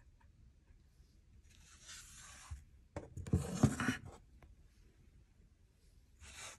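Handling noise as a hand rubs and scrapes over a phone and the table top. There are two rubbing bursts about a second long each, the second louder and with a few clicks, then a short rub near the end as the watch is touched.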